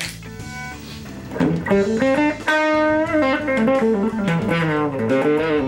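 Electric guitar played through a small 1960s Gibson Skylark tube amp (under 5 watts), its faulty capacitor just replaced: quiet notes at first, then from about a second and a half in louder single-note lead lines with bent, wavering notes. This is a play test after the repair, and it sounds pretty good.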